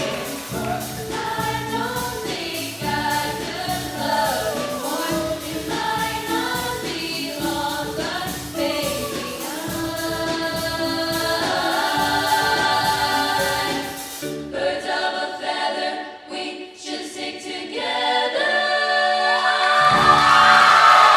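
Choir singing, with many voices on shifting pitches; the sound thins out about 14 seconds in and swells again on held notes near the end.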